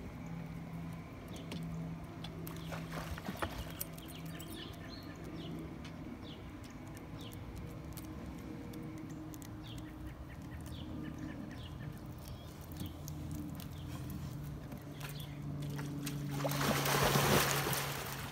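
A Rottweiler jumping into a swimming pool about a second and a half before the end, a loud splash and churning of water, after a long stretch of a steady low hum with faint short chirps.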